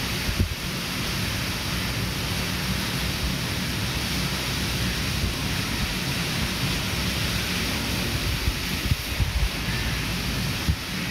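Wind blowing on the microphone, with a few low rumbling gusts over a steady, even hiss of outdoor ambience.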